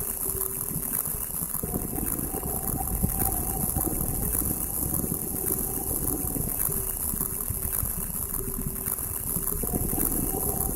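Sounds of a ceramic mug picked up by a contact mic and processed live through a modular synthesizer: a steady, dense crackling rumble with faint held tones above it.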